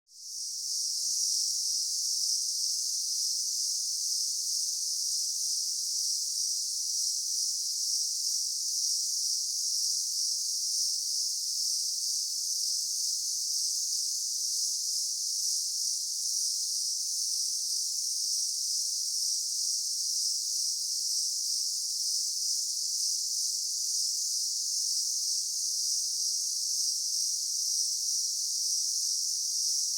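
Daytime insect chorus: a dense, steady high-pitched buzzing drone from many insects at once, fading in during the first second and then holding even.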